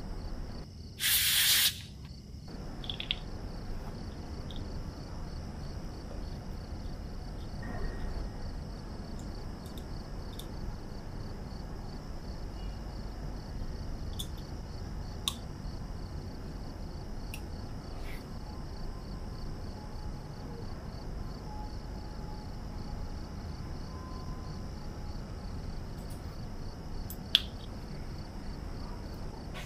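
Small metal clicks and taps of tools and parts on a watch case during reassembly, the sharpest near the end as the caseback is pressed home, with a short loud hiss about a second in. A steady high pulsing chirr, like crickets, runs underneath throughout.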